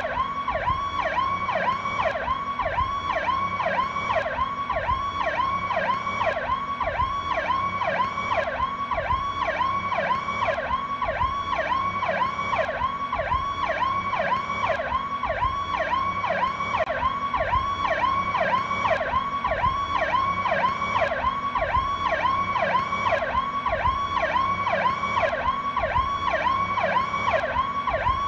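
Powercall electronic police siren sounding continuously, a fast rising-and-falling sweep at about two cycles a second.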